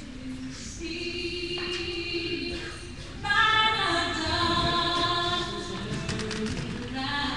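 A group of voices singing long held notes, growing louder about three seconds in.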